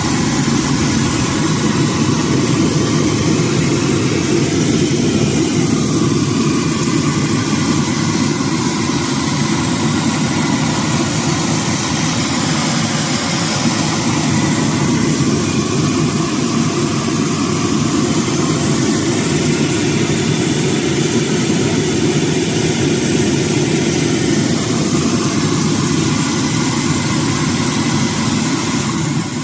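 A loud, steady roar and sizzle of trout deep-frying in oil in a kadai over a gas flame.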